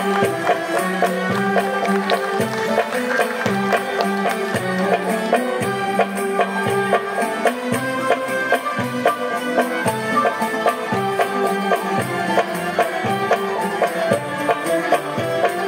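Traditional Algerian ensemble of ouds, mandolins, violins and guitars playing together, with hand percussion keeping a steady beat about once a second.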